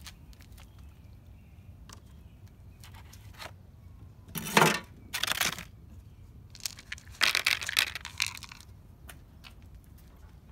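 Dry cat food rattling and crunching into a plastic food tray in several short bursts, starting about four seconds in and ending near the nine-second mark.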